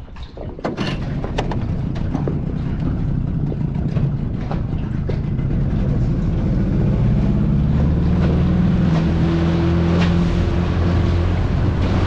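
Small outboard motor on an inflatable dinghy catching and running, with a few sharp knocks in the first seconds. It is throttled up after about seven seconds and runs louder and steadier as the dinghy gets under way.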